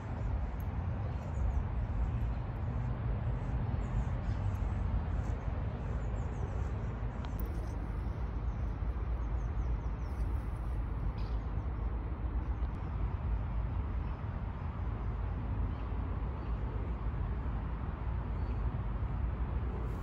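Outdoor background noise: a steady low rumble with a faint hiss above it, without any distinct event standing out.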